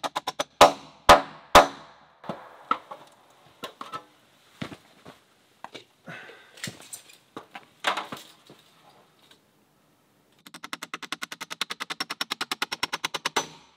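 Hammer driving nails into timber roof rafters: three loud blows about half a second apart near the start, then scattered lighter knocks. Near the end comes a fast, even run of light taps, about eight a second.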